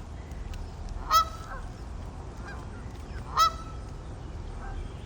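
Geese honking: two loud honks about two seconds apart, with fainter calls from the flock between them.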